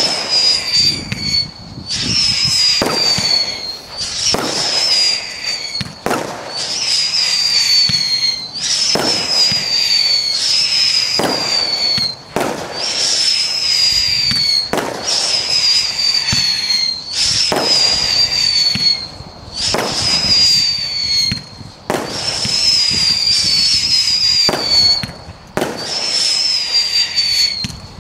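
Zeus Fireworks Tornado, a large-bore 36-shot vertical-firing aerial barrage, firing shot after shot about every two seconds. Each shot is a sharp launch followed by a high whistle that slides slightly down in pitch.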